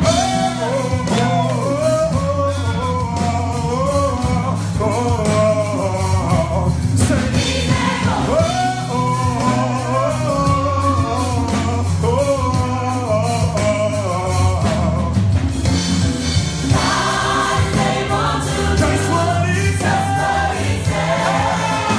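Live gospel praise team singing: a male lead and a group of women's voices, over instrumental backing with sustained low notes and drum hits.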